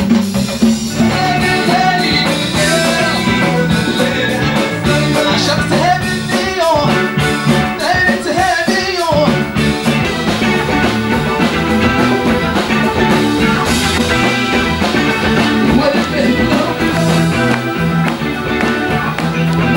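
Upbeat live band music, with drums and a steady bass line under a melody that slides up and down in pitch a few times near the middle.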